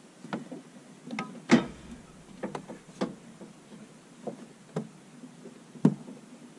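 Irregular knocks and clicks as the spoked blade wheel of a Norwood HD36 bandsaw mill is handled and fitted in its wheel housing, about ten in all, the loudest about a second and a half in and again about six seconds in.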